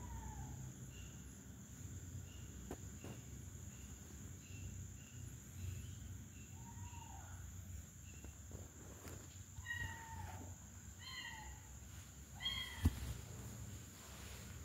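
Kittens meowing, about five short calls that fall in pitch, the last few close together. A faint, regular chirping runs in the background for the first half, and a single sharp knock comes near the end.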